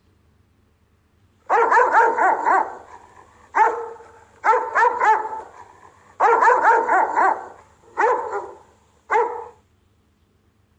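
Rottweiler guard barking: quick runs of several barks broken by short pauses, then two single barks near the end.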